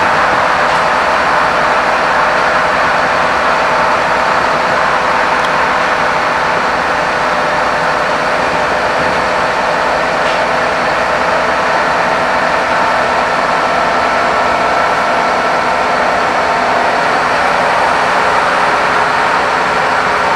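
Scania K230UB bus's rear-mounted nine-litre five-cylinder diesel engine running steadily under way, heard inside the passenger cabin with road and tyre noise and interior rattles. The pitch holds level, with no gear changes or revving.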